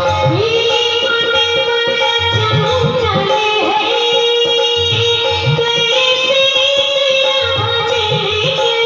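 Devotional bhajan music: a tabla beat under a held melody line, typical of a bhajan's instrumental interlude.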